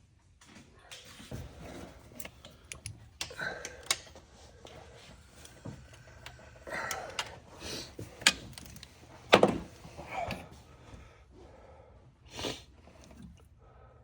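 Hand tools clinking and knocking against metal parts in a truck's engine bay: irregular clicks and clanks, with a sharper knock about nine seconds in.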